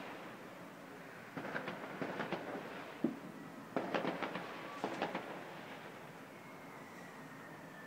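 Distant fireworks: three clusters of rapid crackling bangs, with a single sharper bang about three seconds in. Near the end a faint thin whistle slowly falls in pitch.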